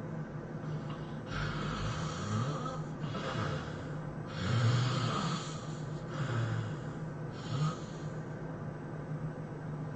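A person snoring in sleep: about five snores and snorts of uneven length, the loudest about four and a half seconds in, over a steady low hum.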